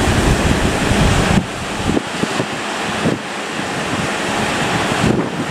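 Strong wind buffeting the microphone over the rush of sea waves. The heavy low rumble of the gusts eases abruptly about a second and a half in, leaving a steadier wash of wind and water.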